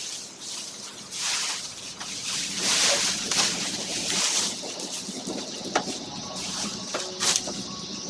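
Dry grass thatch rustling and crackling as it is gathered and pressed down by hand, in several surges. Two sharp knocks come in the second half.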